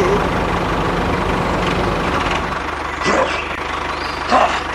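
Engine running steadily at idle, with a low even hum, and a few short chirping sounds over it about three and four and a half seconds in.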